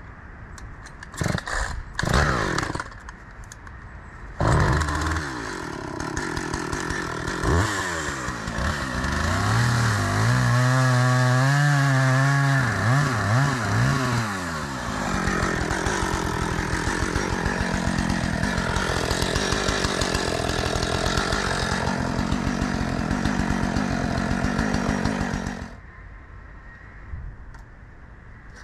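Gas-engine log splitter running and splitting firewood: a few knocks at first, then the engine running loud and steady, its pitch dipping and wavering for a few seconds partway through, before the noise drops away near the end.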